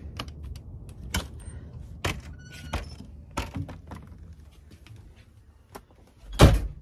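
Distant thunder rumbling and fading under scattered sharp knocks and taps, with one loud thump near the end.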